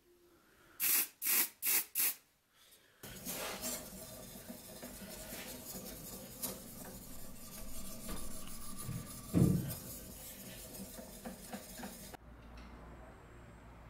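Four quick hisses from an aerosol spray can about a second in, then about nine seconds of steady rubbing on a surface, with one dull knock about nine and a half seconds in.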